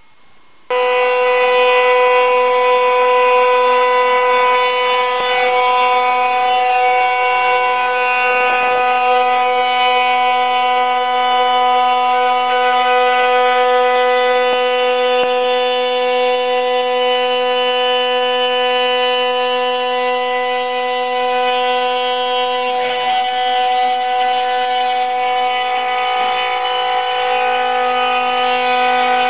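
Spindle of a TH6090 CNC router running at speed while its bit mills a groove into a wooden strip: a loud, steady whine of several pitches at once, starting about a second in.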